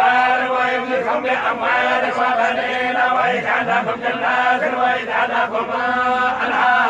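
Men's voices chanting Quran recitation in Arabic: a continuous melodic chant that carries on without a break.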